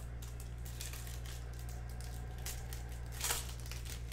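Foil trading-card pack wrapper crinkling and being torn open, with cards sliding against each other, in a run of short crackles and one louder crackle about three seconds in. A steady low hum sits underneath.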